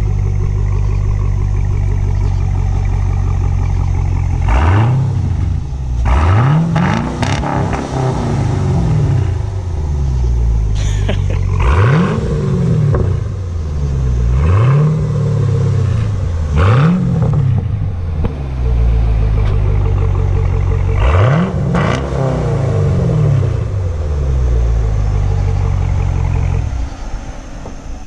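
5th-generation Camaro SS 6.2-litre V8 idling through a Borla Atak axle-back exhaust with an X-pipe in place of the resonator. It is blipped about eight times, each rev rising and falling back to idle.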